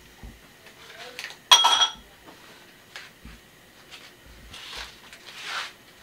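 A metal ladle strikes the rim of a metal wok once, about a second and a half in, with a short ringing clang, among a few fainter clinks of utensils.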